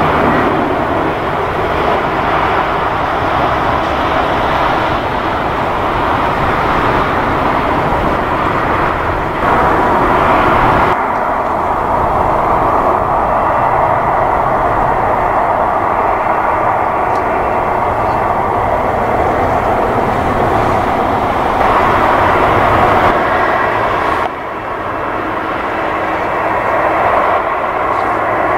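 Jet engines of a taxiing Boeing 747-400 freighter, with four engines at low taxi thrust: a steady jet rush with a faint whine. The level steps up or down abruptly a few times.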